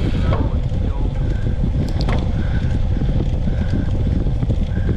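Wind buffeting the microphone: a loud, fluttering low rumble, with a faint click about two seconds in.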